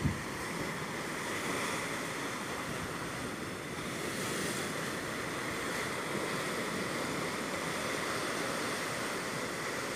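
Sea surf washing and breaking against the foot of a rock cliff, a steady rushing wash heard from above, with a short knock right at the start.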